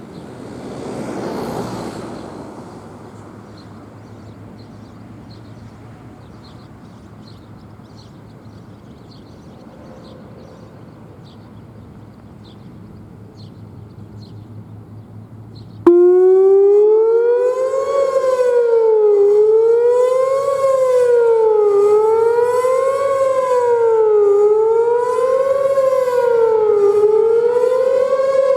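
A Whelen WPS-4004 electronic outdoor warning siren starts abruptly about halfway through and sounds its fast wail, the pitch rising and falling about every two and a half seconds. Before it there is only low outdoor background, with a brief whoosh near the start and faint chirps.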